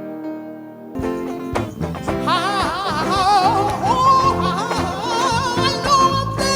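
Music: a held chord dies away, then about a second in a new passage begins, with a solo voice singing a wavering melody with heavy vibrato over accompaniment.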